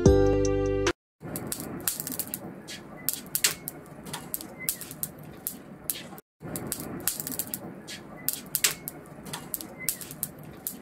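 An intro music jingle ends within the first second. Then comes a steady background hiss with irregular sharp clicks, several a second, and a few short high chirps.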